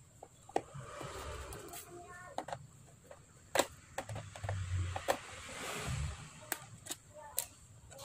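Plastic bottom case of an Asus X541 laptop being worked with a metal pry tool: a string of sharp, irregular clicks from the case's clips and edges, with two short stretches of scraping.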